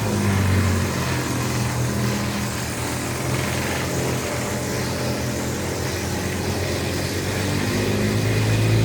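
Petrol-engined wood chipper running steadily under load as freshly cut thuja branches are fed through, the engine note mixed with a dense, even crackle of wood being chipped.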